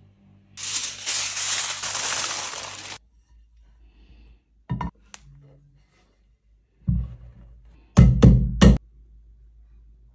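Knocks on an upturned metal loaf pan resting on a ceramic plate, tapped to loosen a baked flan: single knocks in the middle, then the loudest three in quick succession near the end. A loud steady hiss fills the first couple of seconds.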